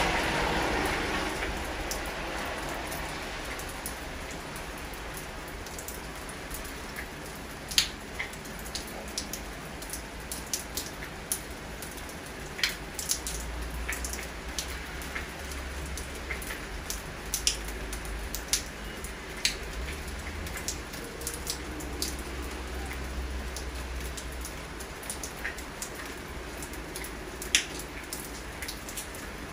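Steady rain with irregular sharp drips of raindrops landing close by. A car on the wet road fades away over the first second or two.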